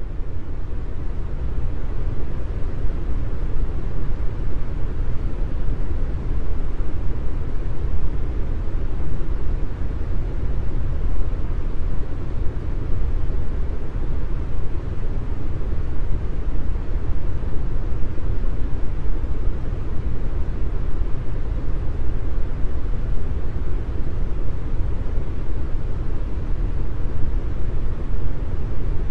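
Steady low rumbling noise, with no clear tone or rhythm.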